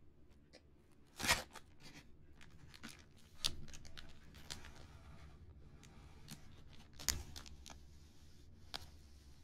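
Fingers handling and tapping a flat cardboard model kit in a clear plastic bag: a soft scratchy rustle of plastic, broken by a few sharp taps, the loudest about a second in, at three and a half seconds and at seven seconds.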